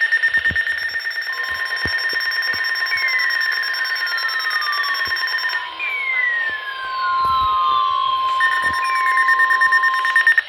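NOAA Weather Radio's 1050 Hz warning alarm, a steady single tone that starts about a second in and holds for about nine seconds, sounded as part of the required weekly alert test. Over it a higher pulsing alarm beep sounds at the start and again near the end, with a few tones sweeping down in pitch in between.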